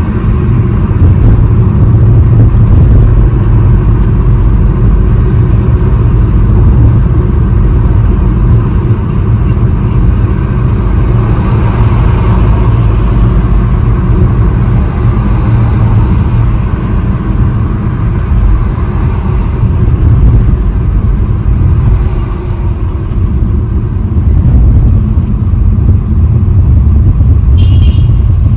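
Car driving in toll-road traffic, heard from inside the cabin: a steady low rumble of engine and tyres on the road. A brief higher sound comes near the end.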